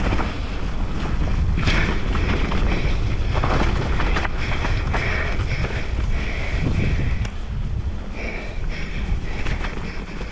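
Wind buffeting a GoPro microphone on a fast mountain bike descent, a 2018 Giant Reign's tyres rolling over dirt with short knocks as the bike hits bumps.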